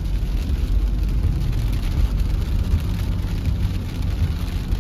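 Steady low rumble of a car driving on a wet road, heard from inside the cabin, with a faint hiss of rain on the windscreen.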